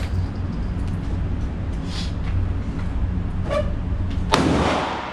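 A single pistol shot about four seconds in, with a short echo trailing off, over a steady low hum; a couple of faint clicks come before it.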